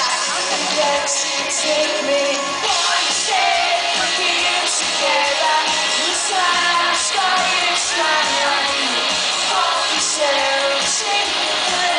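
Pop-rock band playing live through a concert PA: a lead voice singing over electric guitars and drums with regular cymbal hits, heard from within the audience.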